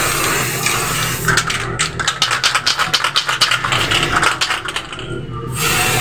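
Aerosol spray-paint can hissing as it sprays, then shaken hard, with a fast rattle of clicks from its mixing ball for about four seconds before it goes quiet.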